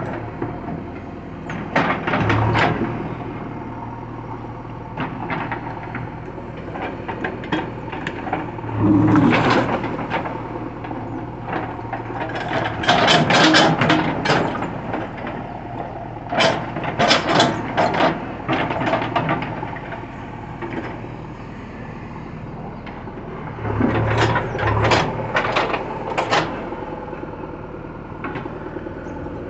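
JCB backhoe loader's diesel engine running steadily while the machine digs a trench, with several bouts of clanking and scraping. The engine works harder during some of the bouts.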